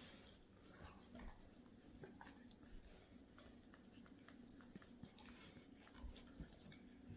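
Near silence, with faint scattered clicks and scuffles from a Boston Terrier puppy and a young Great Dane mouthing and play-biting each other on a rug.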